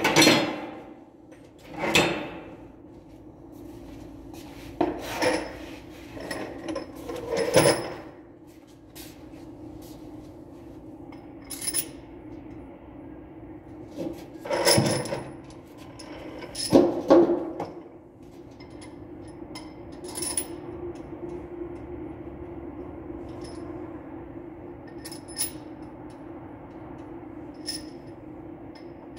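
Metal hand tools and engine parts clinking and clunking as a mechanic works on the engine of a JCB machine during a top overhaul. The work is scattered sharp clinks with a few louder clunks and scrapes, over a steady low hum.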